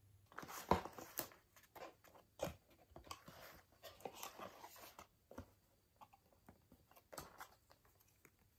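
A kraft cardboard mailer box and the paper cards inside being handled: a string of taps, knocks and rustles as the flaps and cards are moved, loudest a little under a second in.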